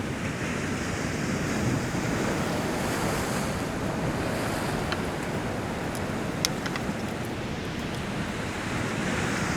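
Heavy ocean surf washing steadily against the rocks, with wind buffeting the microphone. A few light, sharp clicks come through about halfway.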